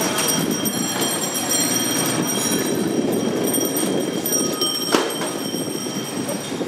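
Motorcycle riding slowly along a street, heard from the rider's seat: a steady rumble of engine and road noise, with a sharp click about five seconds in.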